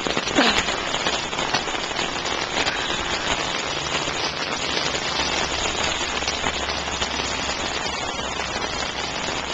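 Heavy rain falling steadily: a dense, even hiss with scattered sharp ticks of close drops.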